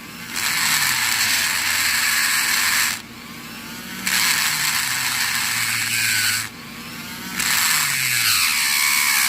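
Electric drill boring into the metal core of a Kaba padlock, in three bursts of grinding of about two and a half seconds each with short pauses between. The bit is reaching the lock's pins, which are taken to be ball bearings.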